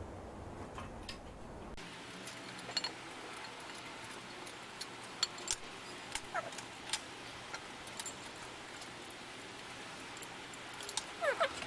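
Light, scattered metal clicks and taps as cast frame parts and bolts are handled and fitted together, with a louder clatter near the end.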